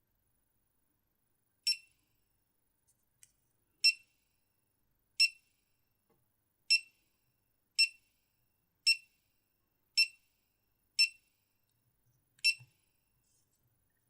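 Short, high electronic beeps from a GoPro Hero 4 Silver action camera: nine identical single-tone beeps, each brief, about one a second with slightly uneven spacing.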